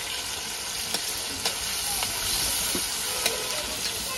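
Chopped onions sizzling in hot oil in a kadai, with a steady frying hiss. A flat metal spatula stirs them, scraping and knocking against the pan a few times.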